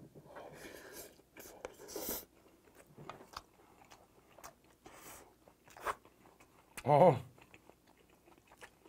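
Close-miked mouthful of bibimbap taken off a spoon and chewed, with wet smacking and soft crunching. About seven seconds in comes a short hummed "mmm" of enjoyment through a full mouth, rising and falling in pitch, the loudest sound.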